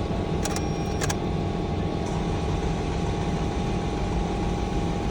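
Starter motor cranking the 2018 Toyota Camry's engine over steadily, with two sharp clicks about half a second and a second in. The engine turns over without catching: a crank-no-start fault, and no spark is found at the ignition coils.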